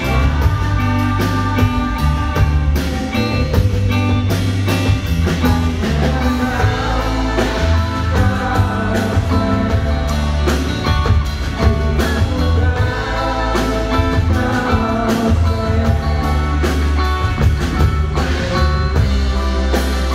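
Live band playing through the stage PA: drum kit hits, a heavy bass guitar line and guitar chords, loud and unbroken.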